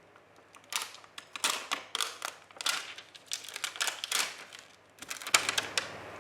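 Irregular rustling and crinkling of paper and plastic, with light taps and clicks, as rubber craft stamps and their packaging are handled.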